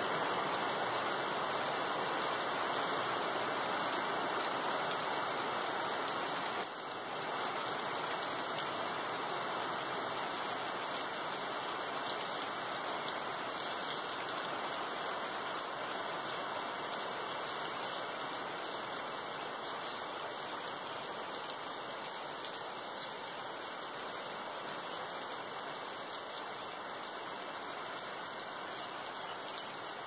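Heavy rain falling steadily on garden leaves and a puddled yard: a dense hiss with many small drop ticks, easing slightly toward the end. There is one sharp knock about seven seconds in.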